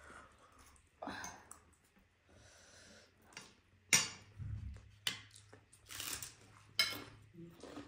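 Cutlery clinking against plates and bowls while people eat, with a few sharp clinks about four, five and seven seconds in and quieter eating sounds between.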